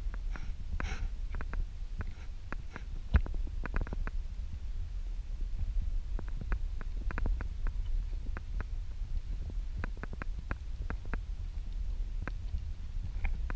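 Low wind rumble buffeting an action camera's microphone during a horseback ride, with scattered light clicks and knocks from the moving rig and tack, and one louder knock about three seconds in.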